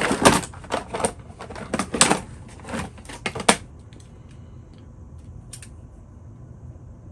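A quick run of sharp clicks and clatter from small tools being handled on a desk as a pair of calipers is picked up. It lasts about three and a half seconds, with one more click a couple of seconds later.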